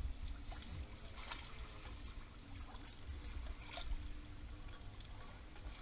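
Water lapping and trickling around the hull and propeller, with a low rumble and a few faint short clicks of metal as a cotter pin is bent over on the propeller nut.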